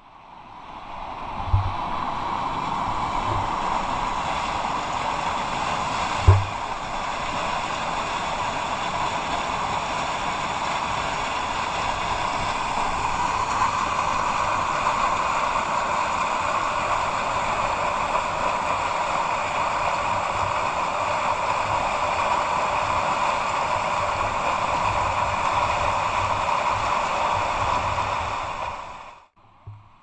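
Steady rushing of fast river rapids, fading in at the start and stopping shortly before the end, with two brief low thumps in the first several seconds.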